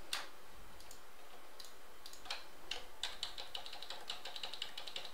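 Typing on a computer keyboard: a few scattered key clicks, then a quick run of keystrokes over the last two seconds or so.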